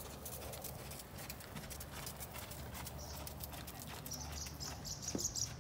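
Hoofbeats of a ridden horse moving on a circle, an irregular run of soft footfalls over a low steady rumble, with a short burst of high-pitched chirping near the end.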